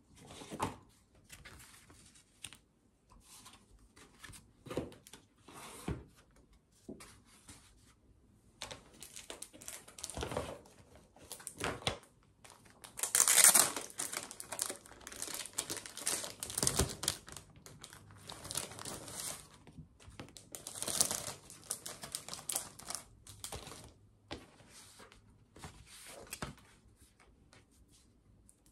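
Irregular rustling and crinkling as sheets of paper are handled and a paper pad in a plastic wrapper is picked up and turned over, the plastic crinkling. The loudest crinkle comes about halfway through.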